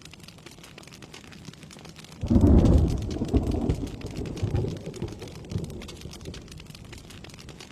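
Steady rain falling. About two seconds in, a loud deep thunderclap breaks in, then rumbles on in rolling waves and dies away over the next few seconds.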